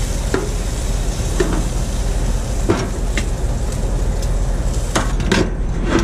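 Several sharp clinks and knocks of metal tongs on a plastic tray and the Char-Griller's metal lid being shut, over a steady hiss.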